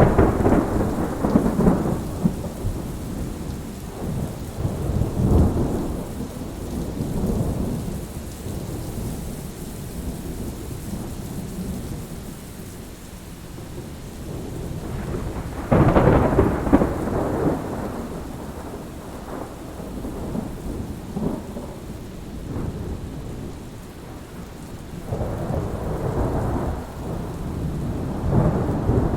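Thunderstorm: steady rain with rolling thunder. Loud rumbles swell right at the start and again around 5 seconds in, the loudest peal comes about 16 seconds in and rolls off over a few seconds, and another long rumble builds near the end.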